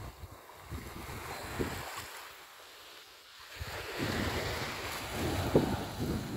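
Wind buffeting the microphone over small sea waves washing ashore. It eases off for a moment around the middle, picks up again, and has a short bump near the end.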